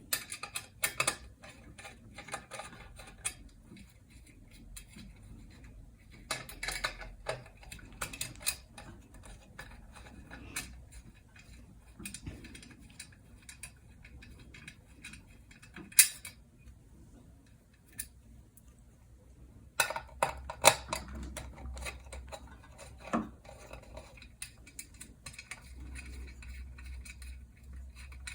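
Scattered clicks and metallic clinks of ceiling fan parts and screws being handled as screws are taken out, with one sharp knock about sixteen seconds in.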